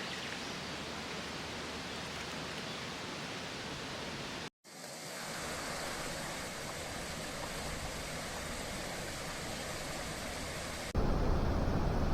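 Steady rushing outdoor noise, broken by a brief cut to silence about four and a half seconds in, then louder gusty noise near the end.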